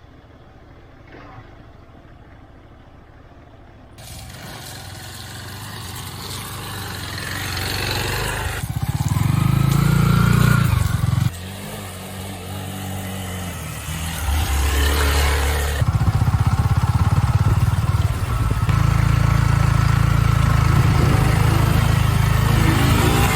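Motorcycle engine revving hard under load on a slippery off-road trail. It climbs in pitch over several seconds, drops off sharply about eleven seconds in, then runs loud and low for the rest.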